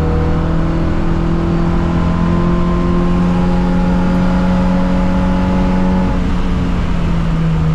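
Simca Rallye 2's four-cylinder engine pulling under load, its pitch climbing slowly for about six seconds, then dropping at about six seconds as it is shifted up.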